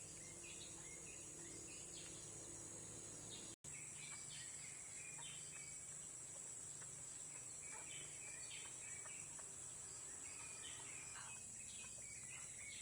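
Faint outdoor ambience: a steady high-pitched insect drone with many short bird chirps scattered through it. The sound drops out completely for an instant about three and a half seconds in.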